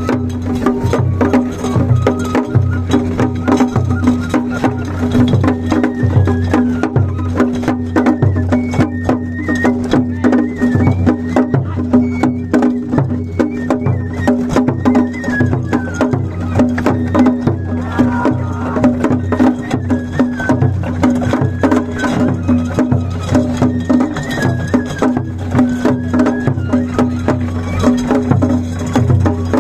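Japanese festival hayashi played on a festival float: quick, steady taiko drumming with a high, wavering melody line over it.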